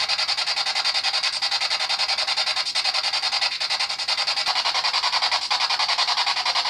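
Spirit box sweeping through radio stations: a steady choppy hiss of static that pulses many times a second, from which the listeners pick out words they take for spirit replies.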